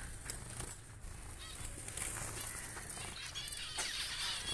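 A caged flock of small finches, Bengalese (society) finches and spice finches among them, chirping and calling in short high notes. The calls come thicker in the last second or so.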